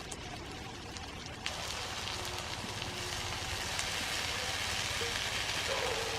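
Food sizzling in a hot pan: a steady crackling hiss with scattered pops, which grows louder after a sharp click about a second and a half in.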